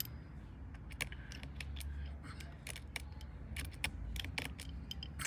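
Scattered small metallic clicks and ticks of a precision screwdriver turning tiny screws inside an iPhone XS Max to disconnect the screen.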